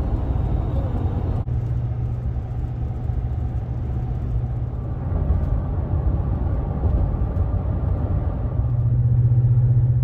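Road and engine noise inside a Ram pickup's cab at highway speed: a steady low rumble and hum. There is a brief break about one and a half seconds in, and the hum grows louder near the end.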